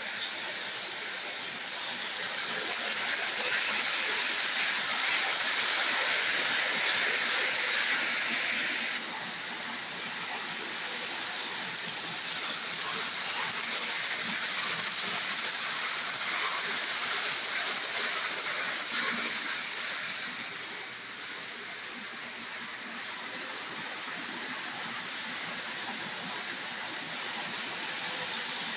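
Electric O-gauge model freight train running on three-rail track: a steady rushing clatter of wheels and motor, louder for the first several seconds and dipping briefly later as the train moves around the loop.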